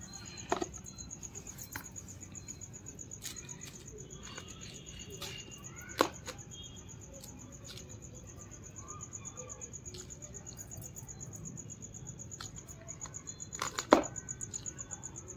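Crickets chirping in a steady high-pitched trill. A few sharp knocks from handling a plastic pot in a plastic tub of potting mix, three times, the loudest near the end.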